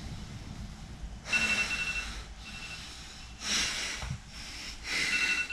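A man breathing hard, winded from a five-minute plank: three long, loud exhales, a little under two seconds apart.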